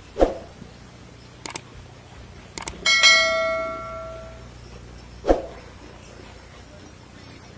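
Subscribe-button overlay sound effect: a short thump, two pairs of mouse clicks, then a single bright bell ding that rings out and fades over about a second and a half, with another short thump near the end.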